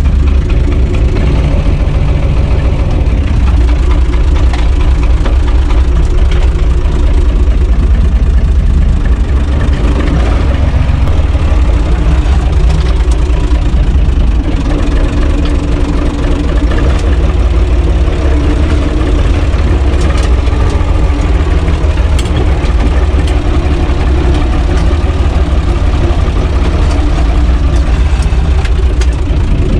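UTB 445 tractor's diesel engine running at a loud, steady idle, freshly started, heard from inside the cab.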